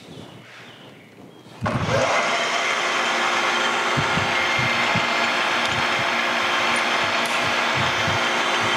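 Vertical milling machine's spindle switched on, starting suddenly about a second and a half in and then running at a steady speed, the end mill spinning free before it touches off the work.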